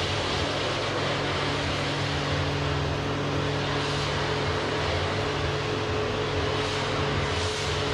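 A steady, even hiss with a constant low machine-like hum under it, unchanging throughout.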